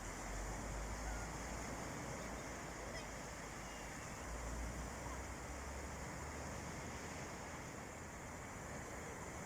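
Sea waves washing onto a beach, a steady hiss of surf, with wind buffeting the microphone in low rumbles that come and go.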